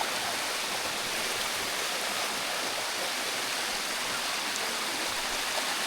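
Water of the Sticky Waterfalls' cascade rushing over rock, a steady, even rush.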